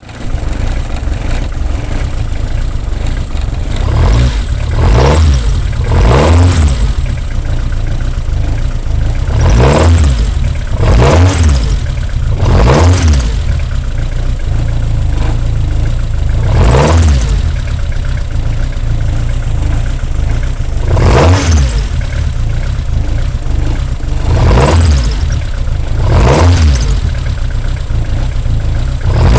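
Toyota AE86's 4A-G four-cylinder engine idling and briefly revved about nine times, each rev rising and falling in pitch. A faint steady high tone runs underneath, and there is an abnormal noise that the owner traces to the alternator: it has come back after a rebuilt unit was fitted.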